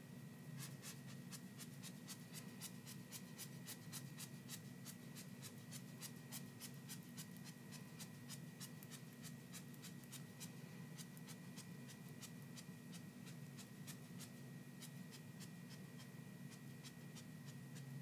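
Faint, rapid light ticking, about four taps a second, as purple glitter is tapped and shaken out of a small container over the top of a freshly poured soap loaf. A faint steady hum runs underneath.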